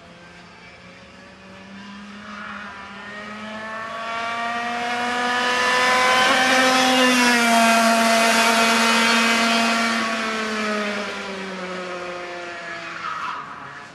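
Parilla Leopard 125cc two-stroke kart engine at high revs, growing louder and higher as the kart comes on. It passes close about seven seconds in, when the pitch drops, and then fades away.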